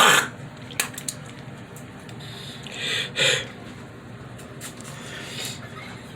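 A man with COVID-19 coughing and clearing his throat in short wet bouts, straining to bring up thick phlegm from his lungs. A cough ends right at the start, a louder double bout comes about three seconds in, and a fainter one comes near the end.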